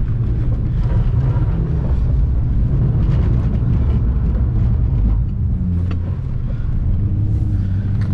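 Naturally aspirated Ford FG Falcon's engine and drivetrain heard from inside the cabin, a loud steady low rumble as the car is driven sideways through a slide, easing slightly about two-thirds of the way in.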